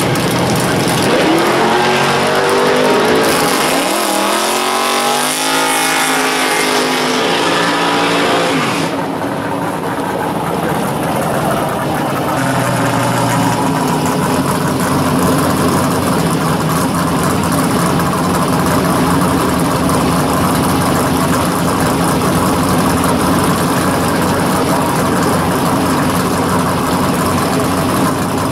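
A drag car's engine revving up in several rising sweeps over the first eight seconds or so. After a cut about nine seconds in, a second drag car's engine idles steadily.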